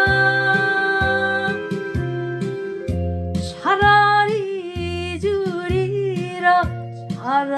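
Korean trot song playing. A long held melody note gives way, about halfway through, to a new phrase with wide vibrato, over a bouncing bass line.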